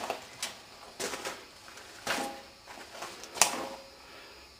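A few scattered knocks and clicks, about four in all, the sharpest about three and a half seconds in.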